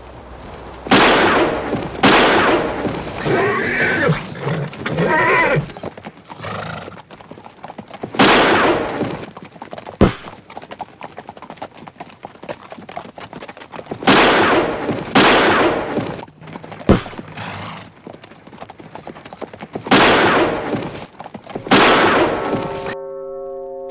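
Western gunfight sound effects: a series of revolver gunshots, each echoing away over about a second. A horse whinnies a few seconds in, and two sharp metallic clicks are heard. Bell-like music tones begin near the end.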